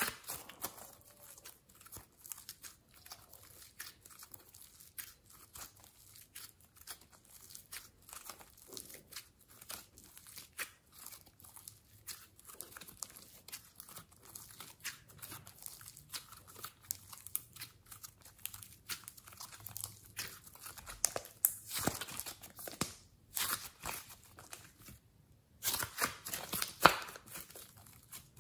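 Slime mixed with clay being squeezed, pressed and stretched by hand: a steady stream of small sticky crackles and clicks. They get louder in two stretches near the end, the second starting suddenly after a short lull.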